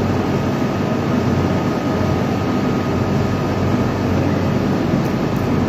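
Steady background noise: a low hum under an even hiss, with no separate events.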